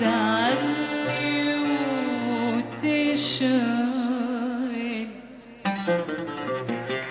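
Live Arabic song performance: a long, ornamented melodic line with strong vibrato. It thins out about five seconds in, and shorter, separate notes follow.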